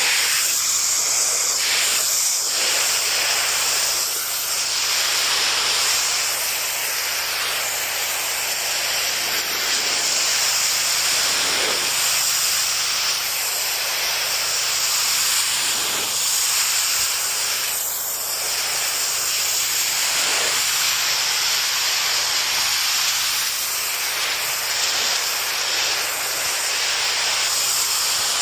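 Pressure washer spraying water at high pressure: a steady, loud hiss that shifts slightly every few seconds.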